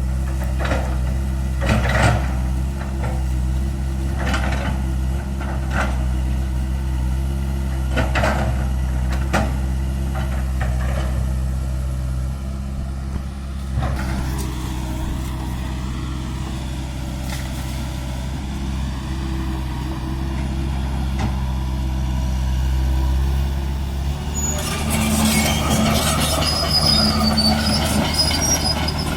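Komatsu PC160-8LC hydraulic excavator's diesel engine running steadily while digging, with intermittent sharp clanks through the first half. A brief rise and fall in engine pitch comes midway, and a denser rattling, scraping clatter starts near the end.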